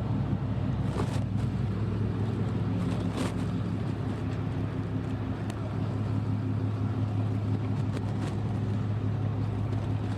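A vehicle engine idling steadily, a low even hum, with a couple of faint knocks about one and three seconds in.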